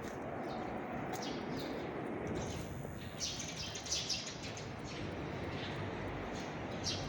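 Small birds chirping in short high calls a few times, over a steady rushing background noise.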